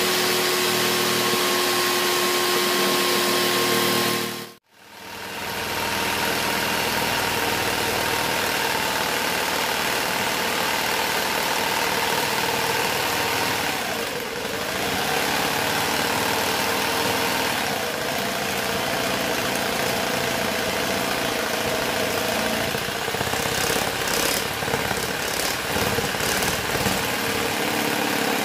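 Electric jigsaw with a fine-toothed blade running steadily as it cuts clear acrylic sheet. The motor cuts out about four and a half seconds in and then builds back up, its pitch dips and recovers for a few seconds in the middle, and there is some rattling near the end.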